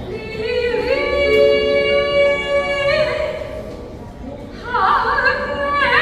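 A high solo voice singing long, held notes. Each note slides up into pitch and then wavers with vibrato, in two phrases with a short break between them.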